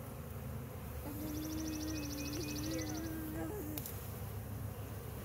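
A honey bee flying close by with a steady buzz that wavers a little in pitch, starting about a second in and stopping near four seconds. Alongside it, for about two seconds, a rapid high-pitched trill.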